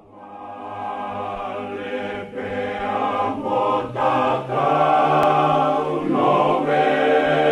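Choral music: a choir singing held chords over a low sustained note, fading in over the first second, with brief breaks between phrases.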